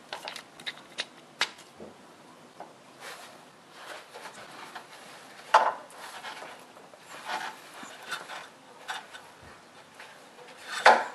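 Scattered clicks, taps and rubbing of hand tools as a pinch-off hose clamp is worked onto a rubber transmission cooler hose, with a sharper click about five and a half seconds in and the loudest clicks near the end.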